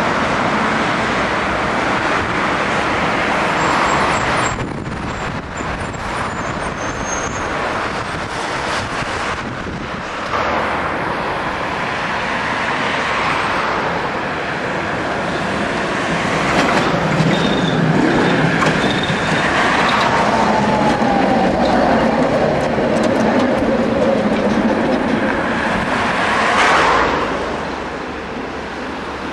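Tatra trams running past on the tracks amid steady road traffic, with a falling whine about two-thirds of the way through.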